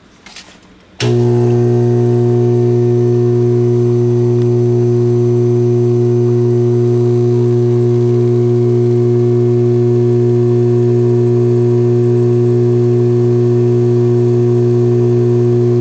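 Dental lab vibrator running with a loud, steady hum that starts abruptly about a second in. It shakes freshly mixed gypsum stone down into an impression tray to work out air bubbles.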